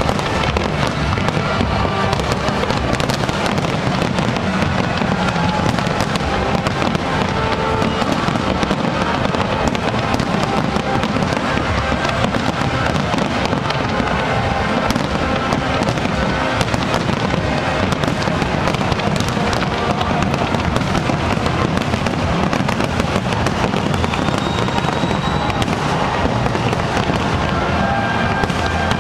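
Large fireworks display: a dense, continuous barrage of bangs and crackling, with music playing underneath.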